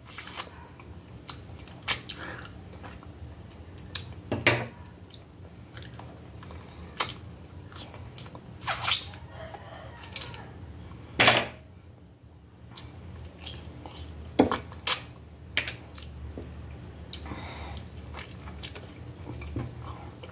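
A person sucking and gnawing meat off a bone from a stew, close to the microphone: irregular short wet sucks and smacks a few seconds apart, with quieter chewing between them.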